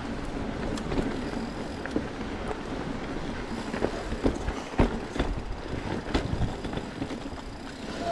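Mountain bike riding fast down a rocky, rooty dirt trail: a steady rumble of tyres and wind on the microphone, with sharp knocks and clatter from the bike as the wheels strike rocks and roots, the loudest about five seconds in.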